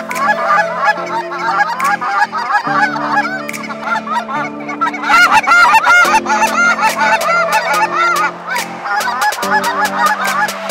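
A large flock of geese calling overhead, a dense din of many overlapping honks, loudest about halfway through. Steady low background music runs beneath it.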